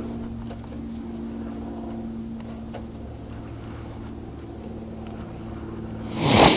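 A small motor's steady hum, with a short loud rush of noise about six seconds in.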